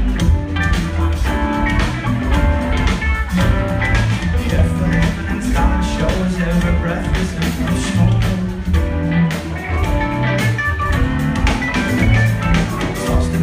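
Rock band playing live, loud, with a steady drum beat, guitar and keyboards, heard from within the audience.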